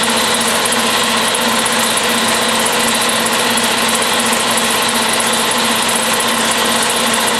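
A machine running steadily: a constant mechanical drone and hiss with a few fixed pitches, not changing in speed or level.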